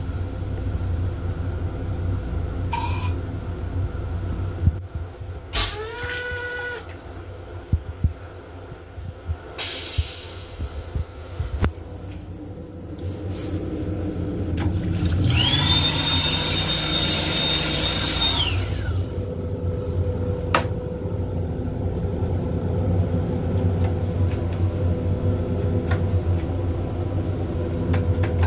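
Sink hand dryer in an M7 railcar restroom blowing for about three seconds, a rush of air with a steady high motor whine that rises at the start and falls away at the end. Under it the moving train's low rumble carries on throughout, with scattered clicks and knocks in the first half.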